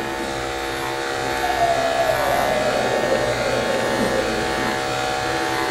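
Corded electric dog-grooming clipper running steadily with a buzzing hum as it is pushed through a matted coat on the dog's head. It gets a little louder about one and a half seconds in, with a short downward slide in pitch.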